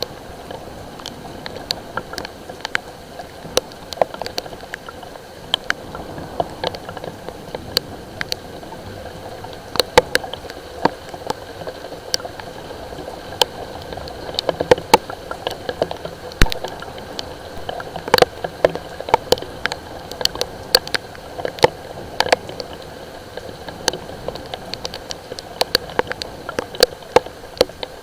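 Light rain falling, with many irregular sharp drops tapping close by over a steady hiss.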